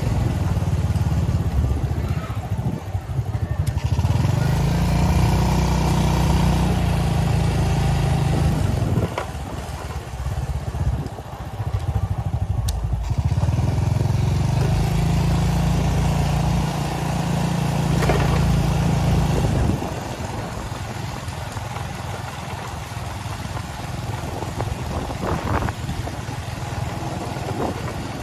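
Motorcycle engine running, louder for two spells of several seconds and quieter near the end.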